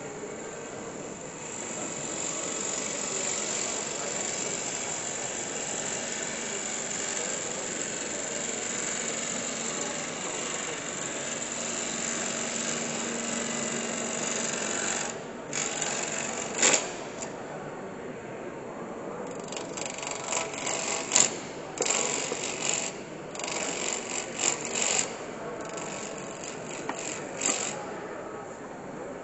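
Gouge cutting a spinning wooden blank on a wood lathe. For about fifteen seconds the cut gives a steady hiss of shavings; after that it turns into a string of short, sharp cutting scrapes and clicks with quieter gaps between them.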